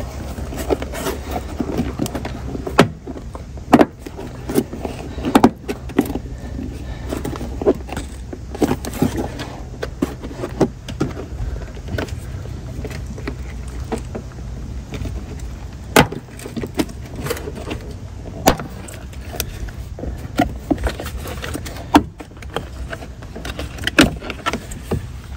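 Plastic trim clips popping and plastic panel knocking as a Toyota Prado 150 Series door-sill scuff plate is prised up and pulled off by hand: scattered sharp clicks and knocks over a low steady hum.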